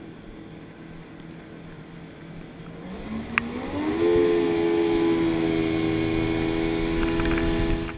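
Jet ski engine running low, then revving up over about a second a few seconds in and holding a steady, louder, higher pitch. A single sharp click comes just as the revs start to climb.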